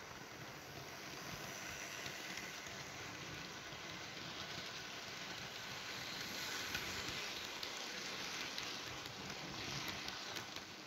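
OO gauge model trains running on the layout: a steady rolling hiss and rattle of small wheels on the track, growing louder in the middle as a freight train and then a rake of coaches pass close by.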